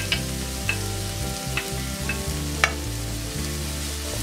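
Chopped onions and green chillies sizzling in hot oil in a nonstick pan, stirred with a wooden spatula. A few sharp ticks stand out, the loudest about two and a half seconds in.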